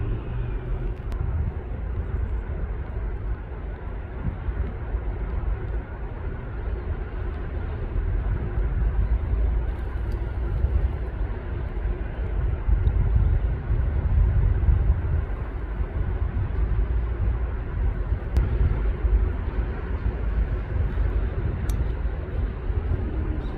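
Steady low outdoor rumble, swelling somewhat louder in the middle, with no bird or animal calls standing out.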